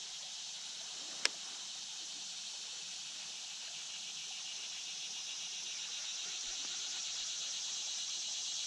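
Steady high-pitched insect chorus, growing slightly louder toward the end, with a single sharp click about a second in.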